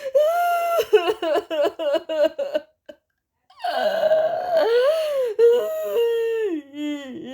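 A female voice crying: a run of quick, high-pitched sobbing catches, a short pause, then a longer wailing cry that falls in pitch near the end.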